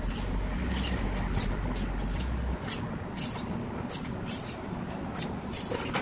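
Wind buffeting the microphone with a low rumble that drops away about two and a half seconds in, over a string of short, dry, irregular rustles and clicks.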